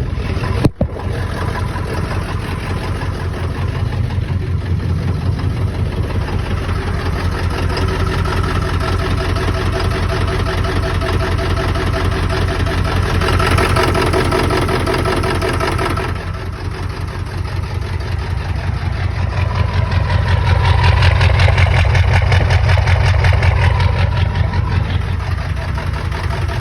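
A 7.3-litre diesel V8 with 400,000 miles running at idle straight after a cold start, with a steady, rapid pulsing beat. It swells in loudness about twenty seconds in, then eases back.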